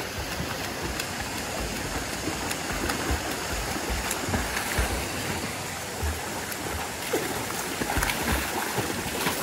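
Steady splashing of two children swimming hard through pool water, with kicks and strokes churning the surface.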